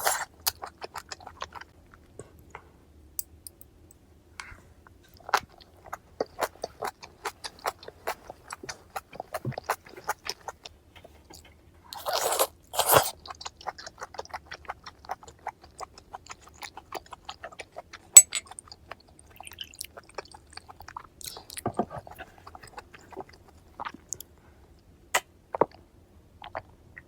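Close-up chewing of bone-in sliced raw flounder (sekkoshi): many small wet clicks and crunches as the fine bones are chewed. Two louder, longer noisy bursts come about twelve seconds in.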